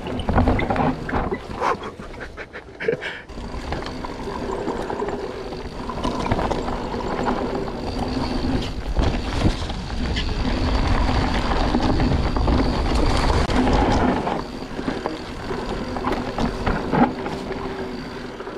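Mountain bike rolling down a steep dirt forest trail: tyres running over dirt, leaves and roots, with the bike clattering over bumps and a low rumble underneath.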